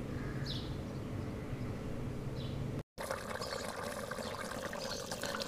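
Chicken curry bubbling and spitting in an open steel pot over a wood fire, heard after a cut about three seconds in. Before the cut there is a low steady background with a few faint bird chirps.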